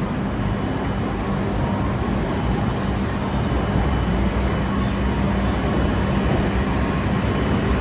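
Steady low rumble and a constant hum from a Shinkansen platform with a bullet train standing at it, growing slightly louder toward the end.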